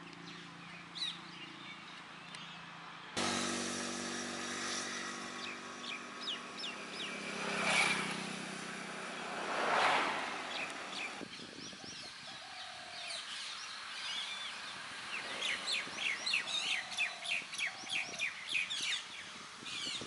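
Assorted birds chirping and calling, ending in a rapid run of short calls. For a stretch in the middle, a steady hum with several held tones and two louder swells of noise runs under them.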